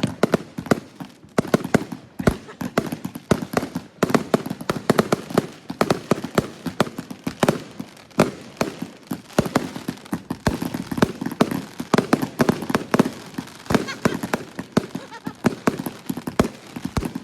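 Two World Class consumer firework cakes, Wings of the Brave and Shield of Liberty, firing together: a dense, irregular string of shots and bursts, several a second, with no let-up.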